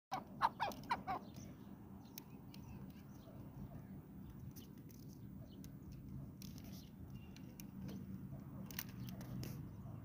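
Chukar partridge giving a quick run of about five loud calls in the first second. After that there is only a low steady background rumble with a few faint scattered clicks.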